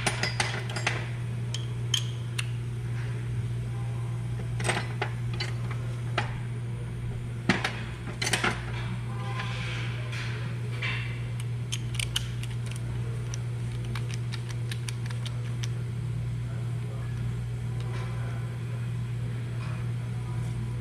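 Metal hand tools and fasteners clinking and clicking at irregular intervals during suspension work, over a steady low hum. The loudest clinks come about seven and a half and eight and a half seconds in.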